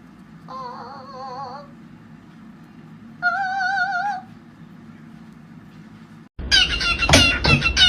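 Two wavering, meow-like animal calls, each about a second long, over a low steady hum. Music with a beat starts near the end.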